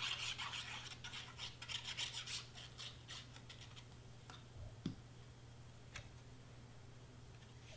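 The fine plastic tip of a craft-glue bottle scrapes and rubs over cardstock in quick strokes as glue is laid on for about three seconds. A few light clicks and a soft knock follow as the bottle and paper piece are handled.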